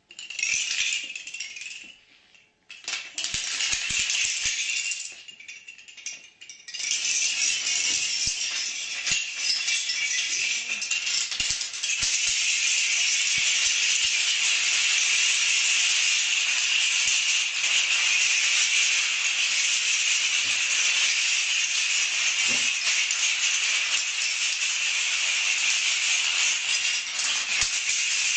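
Thin wooden building planks toppling in a chain reaction and bringing down tall plank towers: a dense clatter of wood on wood and on the floor. It comes in short bursts for the first few seconds, then runs unbroken from about seven seconds in, getting louder around twelve seconds.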